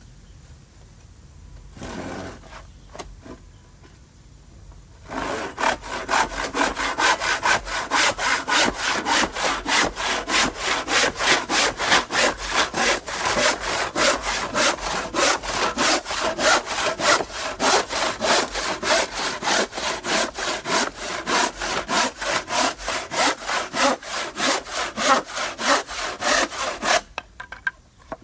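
Hand saw cutting through wood with steady back-and-forth strokes, about three a second. It starts about five seconds in and stops abruptly shortly before the end.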